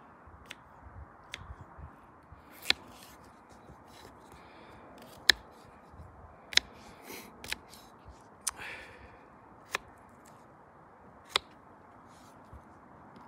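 A Fällkniven U2 folding knife slicing through a raw potato: each stroke ends in a sharp click as the blade meets the wooden cutting board. About nine clicks come at irregular intervals, one to two seconds apart.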